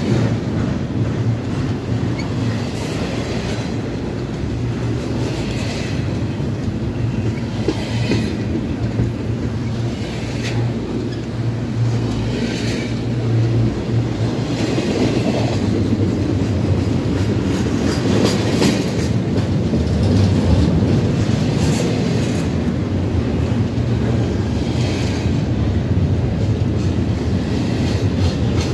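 Norfolk Southern intermodal freight train's double-stack container cars rolling past close by: a steady rumble of steel wheels on rail with repeated knocks and clicks throughout.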